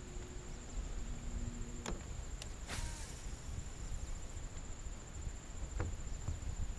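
Low rumble of wind and water around a small aluminium fishing boat. A faint hum stops with a click about two seconds in, a brief swish follows about a second later, and a few small clicks come near the end.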